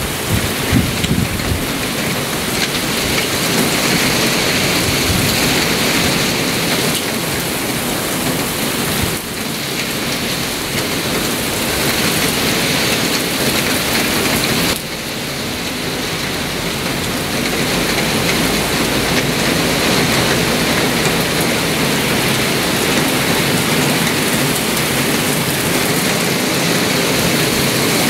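Heavy thunderstorm downpour: rain pouring steadily, with brief dips in level about nine and fifteen seconds in.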